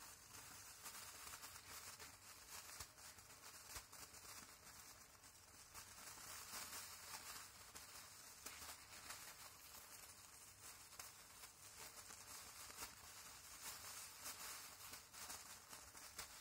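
Thin plastic bag crinkling faintly in short, irregular crackles as a Siberian chipmunk tugs at it.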